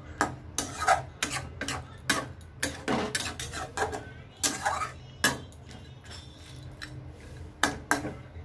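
Flat metal spatula scraping and clanking against a metal kadai while stirring thick chicken curry: a quick, irregular run of strokes that eases off after about five and a half seconds, with a couple more near the end.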